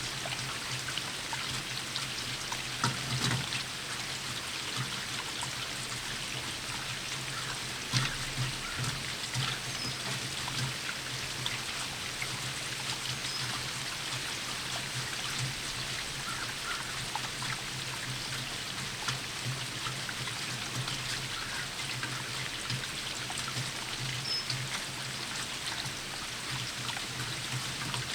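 Steady rain falling, with a constant patter of drops and runoff trickling, and a few heavier drips landing close by about three and eight seconds in.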